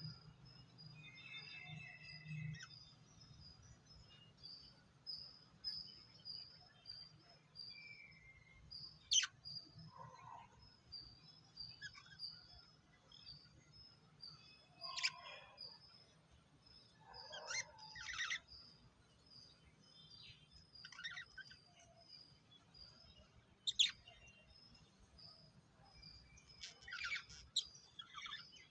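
Lovebirds chirping: a steady run of short, high chirps repeating about twice a second, with sharper, louder calls breaking in now and then.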